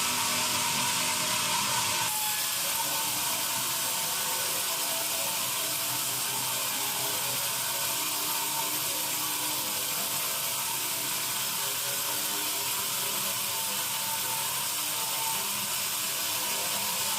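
Sawmill band saw running, a steady high hiss with a faint whine under it, changing slightly about two seconds in.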